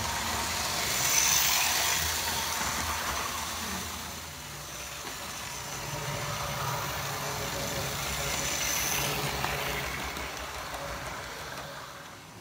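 Hornby APT model train's small electric motor whining and its wheels rumbling along the track, a steady running sound that swells as the train passes close about a second in and again about nine seconds in, then fades near the end.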